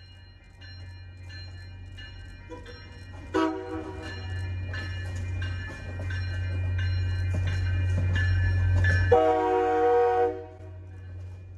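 Grade-crossing warning bell ringing in a steady rhythm, about one and a half dings a second, while an MBTA commuter rail train approaches and passes with a rumble that builds. The train's horn sounds briefly about three seconds in, and again, louder, for about a second near nine seconds in.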